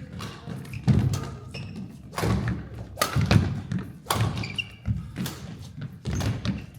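Badminton singles rally: sharp racket strikes on the shuttlecock about once a second, with heavy footfalls and lunges on the court floor between them and a few short high squeaks.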